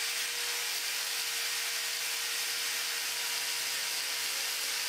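Angle grinder with a flap disc running steadily against a car body panel, grinding paint and rust back to bare steel around the edge of a cut-out to give a clean area to weld to. A constant motor whine sits under the grinding noise.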